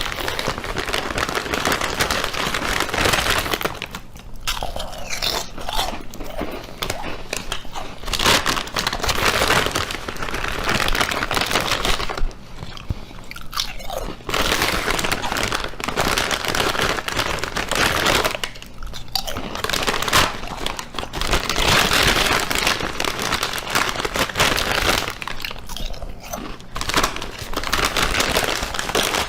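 Loud, dense crunching and crackling, like close-up chewing of crunchy food, with short pauses every several seconds.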